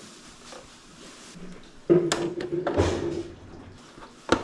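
Plastic base housing of a 3D printer being fitted through its metal frame. About two seconds in there is a sudden knock, then a scraping, rubbing sound that lasts a little over a second. A single sharp click comes near the end.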